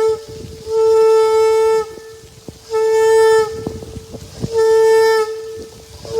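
Shofar (ram's horn) blown in a series of long blasts, three of them about two seconds apart, each held on one steady, bright pitch for about a second.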